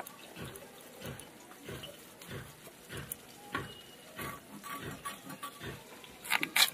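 Thin-skinned new potato being scraped against the blade of a boti to peel it. Short rasping strokes come in a steady rhythm of about one and a half a second, with a couple of sharper, louder clicks near the end.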